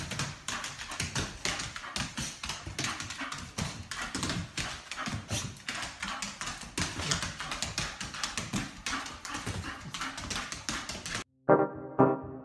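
A dog's claws clicking and scrabbling rapidly on a parquet floor: many quick, irregular taps. Near the end the sound cuts to keyboard music.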